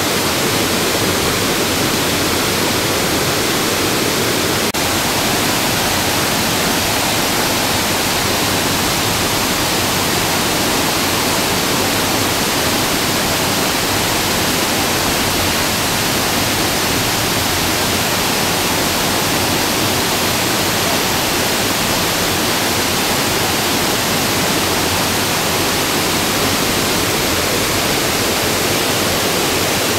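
Havasu Falls pouring into its pool and over the travertine cascades below, a steady, loud rush of falling water.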